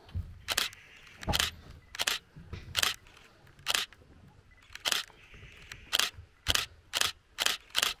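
Camera shutters clicking: about a dozen single shutter clicks at irregular intervals.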